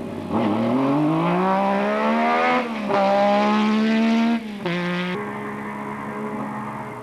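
Metro 6R4 rally car's V6 engine accelerating hard, revs climbing with a gear change about two and a half seconds in. The throttle lifts about four and a half seconds in, and the engine settles to a steady drone that fades away.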